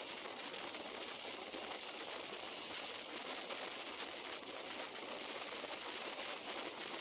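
Steady rushing noise of a moving passenger train heard at an open carriage window: wind and rolling noise, even throughout, with no clear engine note.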